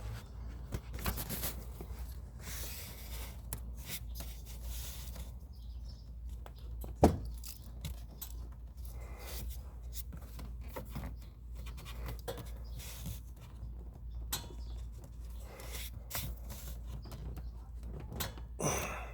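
Handling noises: scattered scraping, rustling and small clicks, with one sharp knock about seven seconds in, over a steady low hum.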